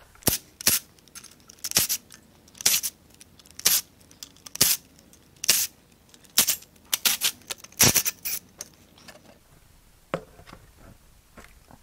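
Hand ratchet and socket clicking in short strokes, about one a second, loosening the intake manifold bolts. The strokes stop about nine seconds in, leaving a few faint clicks.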